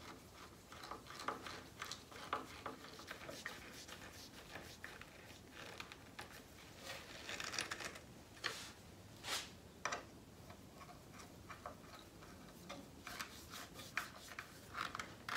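A wood screw being turned in by hand with a screwdriver into reclaimed elm: a run of faint ticks and clicks, with a few louder short scraping twists in the middle and near the end.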